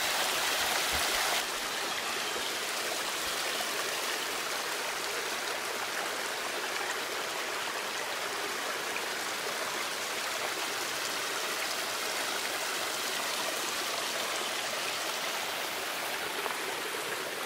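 A small stream running, a steady rush of flowing water, a little louder in the first second and a half.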